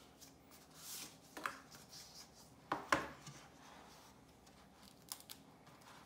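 Cardboard memory-module box being opened by hand: a soft rubbing slide as the sleeve comes off, then a few sharp clicks and taps, the loudest a pair about three seconds in, as the lid is opened.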